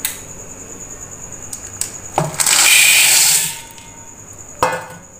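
Dried chickpeas poured from a steel bowl into a glazed clay pot: a knock, then a dense rattling rush of hard grains for about a second, then another knock.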